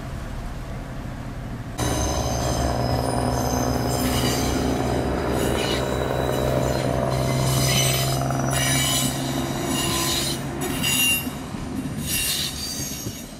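Kustpilen passenger train rolling past at a level crossing, its wheels squealing on the rails with high, shifting tones that come and go over a steady low hum. The train sound starts abruptly about two seconds in.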